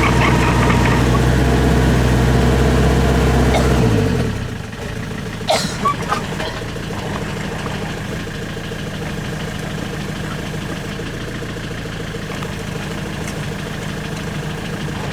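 Excavator's diesel engine running at speed, then throttled down about four seconds in, its note falling. It keeps running at a lower steady idle, with a few sharp knocks shortly after.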